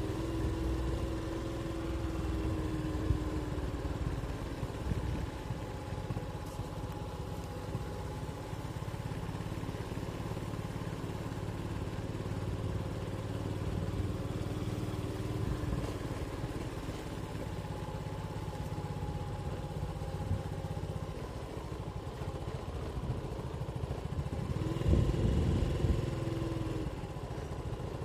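Small motorcycle engine running at low riding speed, heard from the rider's seat over a low rumble. It grows louder briefly near the end, as the bike picks up speed around a corner.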